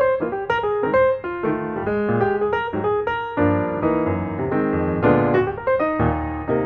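Background piano music, notes struck in a quick, even run over a low bass line.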